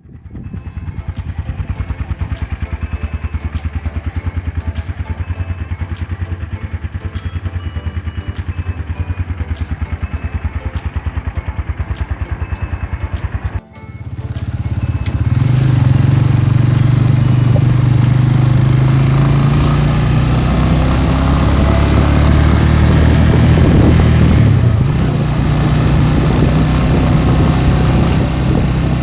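Italika RC200 motorcycle engine running at idle with an even, rapid pulsing. After a sudden break about 13 seconds in, it is louder and its pitch climbs and falls as the bike is ridden.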